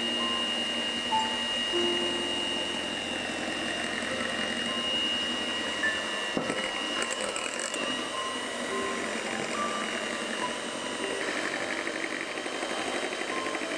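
Electric hand mixer running steadily, its beaters whisking muffin batter in a glass bowl, with a steady high motor whine that fades somewhat about halfway through.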